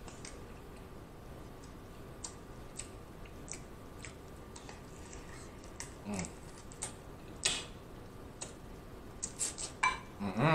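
Eating king crab legs: scattered small clicks and cracks of crab shell being handled and picked apart, with a louder bite and mouth sounds about six seconds in and again a second or so later, and a quick run of clicks near the end.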